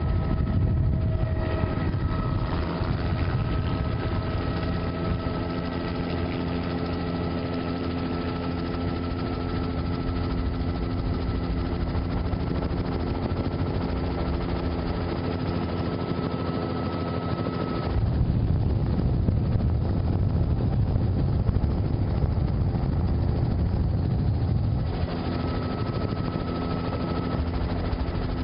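Helicopter's rotor and engine running steadily, heard from on board: a continuous rush with a steady whine and rotor chop. It gets louder and deeper for several seconds in the second half.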